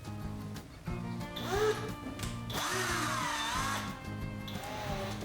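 An electric power tool running, its whine dipping and rising in pitch as it works, over background music with a steady beat.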